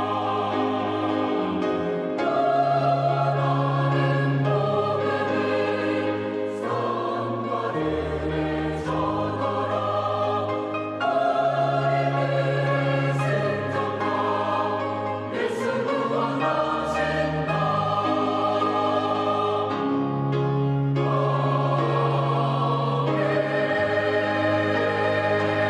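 Church choir singing in full held chords that change about every two seconds over a low bass line.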